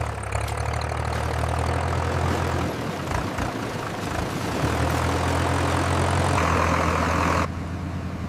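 A vehicle engine running with a steady low hum. The hum drops out for a second or two about three seconds in, then comes back, and the sound changes abruptly near the end.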